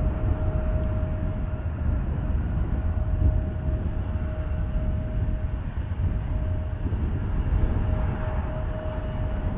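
Jet airliner engines running steadily, a constant whine over a low rumble, with wind buffeting the microphone.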